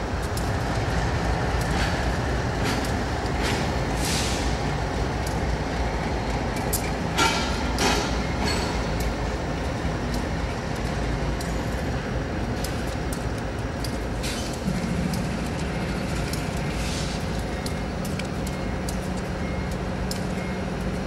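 CSX diesel-electric locomotives running in a yard, a steady low engine rumble. A few short hisses come in the first half, and a steady low hum joins about two-thirds of the way through.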